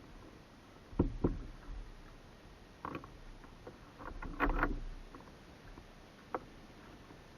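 Kayak paddling: a handful of short, irregular splashes and knocks from the paddle in the water and against the hull, the loudest cluster about four and a half seconds in.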